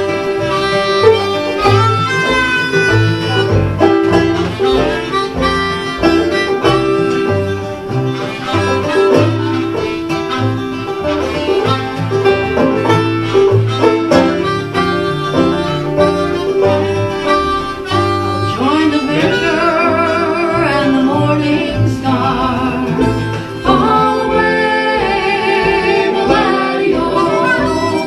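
Live acoustic folk band playing a tune on plucked strings. A wavering melody line with vibrato comes in over the last third.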